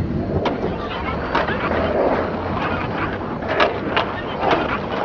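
Street ambience: indistinct chatter of passers-by with scattered clicks and clatter.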